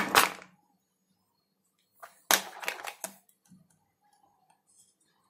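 Knife and fingers clicking and scraping against plastic bottle caps on a plastic tray while freeing steamed rice papads from the caps: a sharp clatter at the start, then a quick run of clicks and scrapes about two seconds in.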